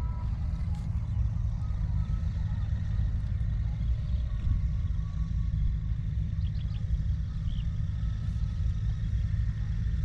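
Steady low rumble of wind buffeting the microphone, with a few faint high bird chirps about two-thirds of the way through.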